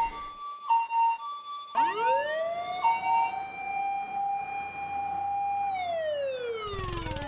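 Fire engine siren sound effect: a two-tone high-low alternation for the first couple of seconds, then a siren winding up into a steady wail that slides down in pitch near the end as another wind-up begins.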